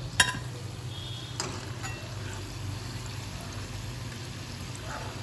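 Hot oil bubbling and sizzling around deep-frying pieces of baati dough, with a sharp click of a steel slotted spoon against the pan just after the start and a couple of lighter clicks over the next two seconds as the fried pieces are lifted out. A steady low hum runs underneath.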